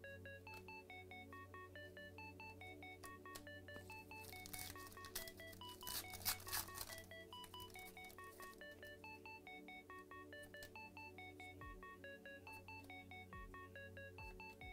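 Quiet background music of short, plinking notes over a steady low bass. About halfway through, a foil trading-card pack wrapper crinkles loudly as it is torn open.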